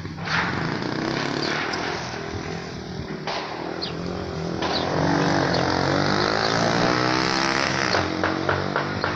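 A vehicle engine running close by, its pitch rising and falling as it revs. Several sharp cracks come near the end.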